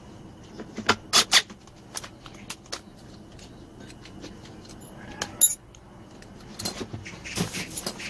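Clicks and knocks of tools and plastic blower-housing parts being handled and set down during reassembly, a few sharp knocks about a second in and a loud click about five and a half seconds in.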